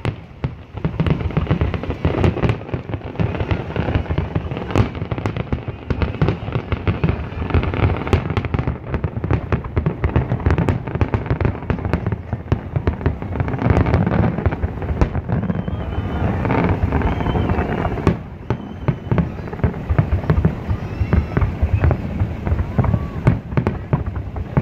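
Aerial fireworks display: a rapid, almost unbroken run of bangs and crackling bursts, easing off briefly about three-quarters of the way through.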